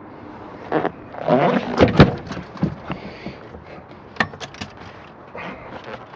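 Knocks, clatter and scraping as a storage hatch on a boat is handled and opened. The loudest knock comes about two seconds in, followed a little after four seconds by a quick run of clicks.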